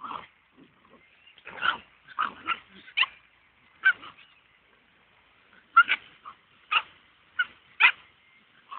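Short, high yips and squeals from two dogs at rough play, a Cavalier King Charles Spaniel puppy and a fox terrier: about a dozen brief calls, coming irregularly with pauses between them.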